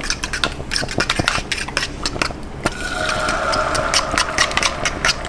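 A metal utensil clicking repeatedly against a bowl or pan, as eggs are beaten and stirred.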